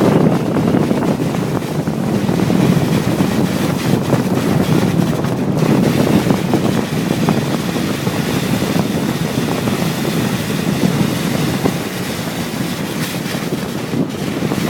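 Wind blowing across the microphone: a loud, steady rumble without a break.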